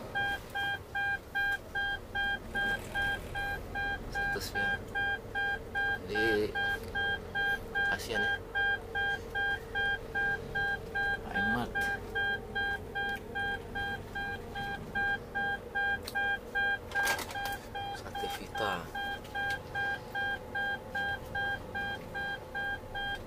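A car's electronic warning beeper sounding an even, unbroken series of beeps at one pitch, about two a second, over a low hum.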